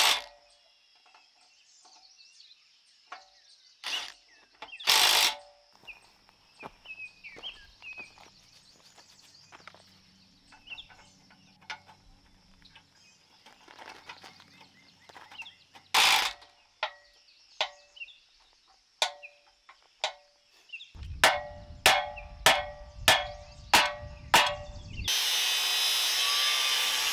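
Metal tools striking the rusted, seized parts of an old tractor front loader: scattered knocks and clinks that ring briefly, then a quick run of about eight blows half a second apart, and near the end a loud steady rasping noise. The parts are rusty and stuck.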